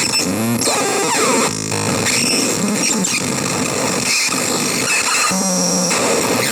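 CMOS-based harsh noise synth giving a loud, dense wall of distorted noise, with squealing pitch sweeps and a brief buzzing pulse near the middle, changing over and over as it is played.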